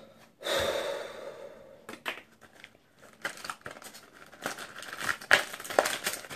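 Plastic snack packaging being crinkled and torn open by hand, with a loud rustle about half a second in followed by scattered crackles.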